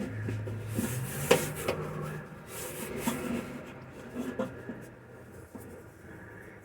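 Handling noise from working a window U-channel inside a car door shell: light clicks and knocks, the sharpest about a second and a half in, with short rubbing scrapes.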